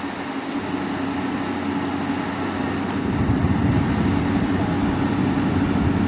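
Motor grader's diesel engine running steadily, slowly getting louder, with a heavier low rumble from about three seconds in.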